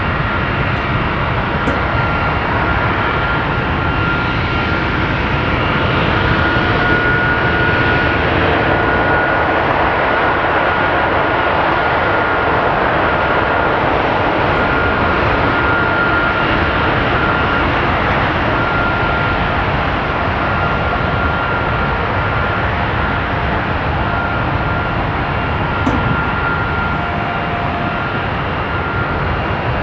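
Boeing 757-200 freighter's turbofan engine running steadily during a ground engine test: a loud, even jet noise with a high whine held at one pitch.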